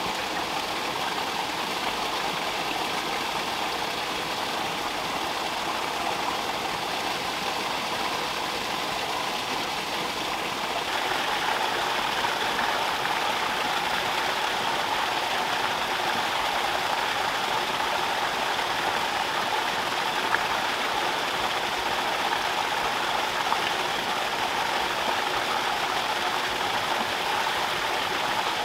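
Water rushing steadily as it runs from a drain into a shallow pond, an even splashing flow that gets louder about eleven seconds in.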